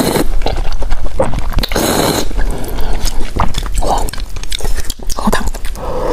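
Close-miked eating of hot and sour glass noodles: noodles slurped up from the bowl, wet chewing with many small clicks, and broth sipped from the bowl's rim near the end.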